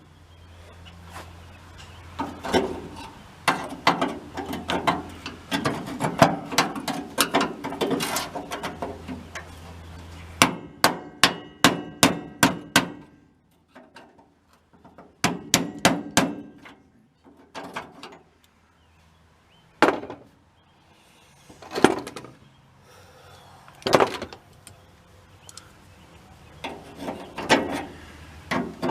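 Hammer blows knocking at a rusted-on lower door hinge on a split-window VW bus, to free it. Quick runs of blows come first, then single strikes every couple of seconds.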